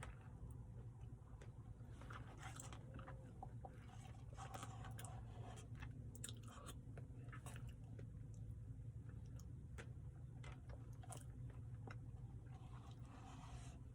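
Faint chewing and biting of someone eating a chocolate brownie Blizzard ice cream, with scattered small clicks, over a steady low hum.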